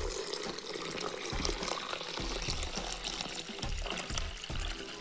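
Water pouring in a steady stream into a stainless-steel Thermomix bowl of ground, soaked tiger nuts, splashing and frothing, over background music with a steady beat.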